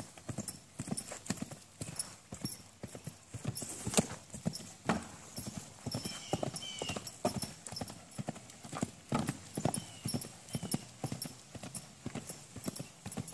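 Hoofbeats of a bay quarter horse mare cantering around a dirt round pen, a steady run of dull thuds from her hooves on the soft footing, with one louder thud about four seconds in.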